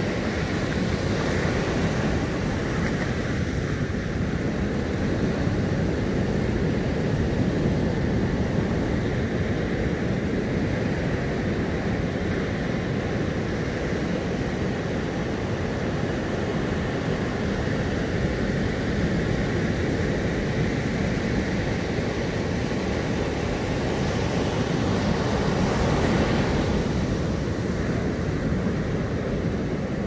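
Sea surf breaking and washing up a sandy beach: a continuous deep rushing wash, with one wave breaking louder near the end.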